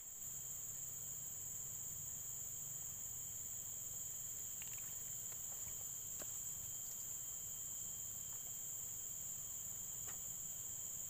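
Steady, high-pitched drone of a chorus of insects, with a few faint clicks.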